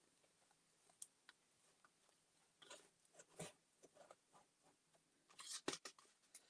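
Faint glue stick rubbing over paper and paper rustling as a cut collage piece is glued and handled. The loudest rustle, with a sharp tap, comes about five and a half seconds in.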